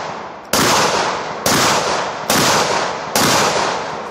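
Four gunshots, about a second apart, each with a long echo fading away before the next.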